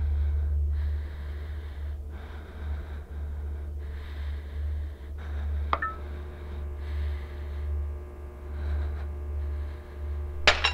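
Dark film sound design: a deep steady rumble with a faint breathy hiss over it. About halfway a soft click sets off a held low note, and near the end a bright glassy chime rings out.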